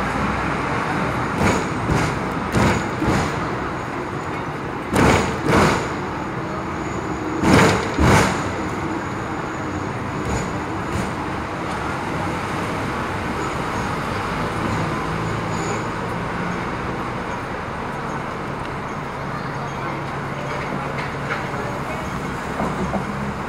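Hong Kong double-decker electric tram running, heard from on board: a steady rumble mixed with road traffic. Over the first eight seconds or so come four pairs of sharp knocks, each pair about half a second apart; the later two pairs are the loudest.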